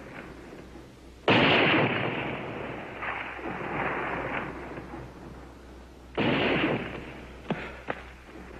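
Two pistol shots fired into the air, about five seconds apart, each with a long echo dying away. The first shot is the louder.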